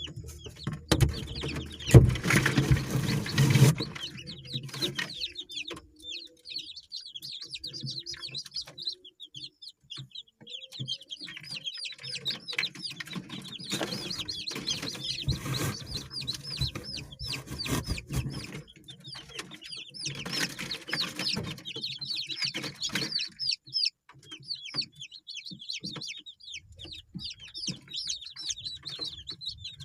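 Village chickens (ayam kampung) clucking, with a dense stream of short high peeps running through most of it. There are louder, noisier stretches a couple of seconds in, in the middle and about two thirds through.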